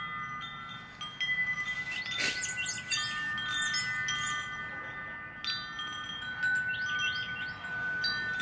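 Wind chimes ringing, several long tones restruck again and again, with short high bird chirps over them.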